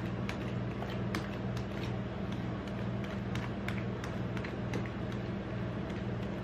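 Metal spatula tapping and scraping on the metal cold plate of a rolled-ice-cream station, a string of short irregular clicks, over a steady low machine hum.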